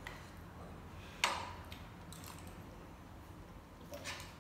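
Metal spoons clinking and scraping on plates of rice: one sharp clink with a short ring about a second in, and a few lighter taps.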